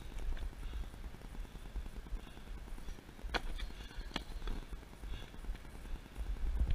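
Low wind rumble on an action camera's microphone, with two sharp clicks about three and a half and four seconds in.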